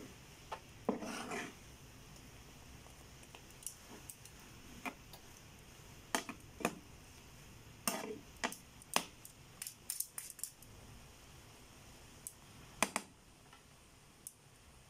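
Metal tongs and a wooden spatula clacking and scraping against a stone-coated nonstick frying pan as stir-fried noodles are tossed. Scattered separate knocks, with a longer scrape about a second in and a quick cluster of clicks near the middle.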